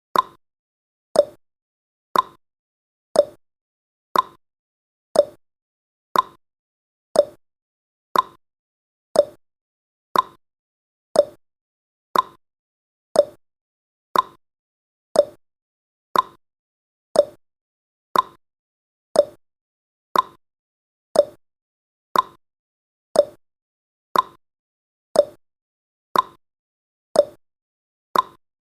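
Countdown timer sound effect ticking evenly, one short tick each second.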